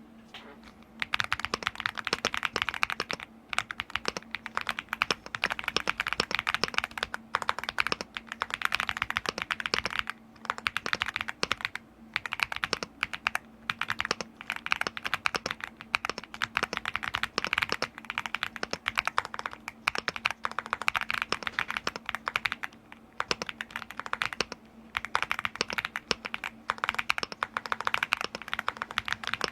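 Fast typing on a Machenike KG98 gasket-mounted mechanical keyboard: rapid keystroke clacks in long runs, broken now and then by short pauses.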